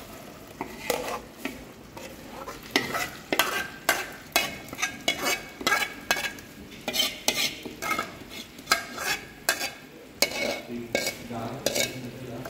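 A spoon or ladle stirring freshly added spinach and green moong dal into frying masala in a pan, scraping and knocking against the pan about two to three times a second, starting about a second in, with the mix frying underneath.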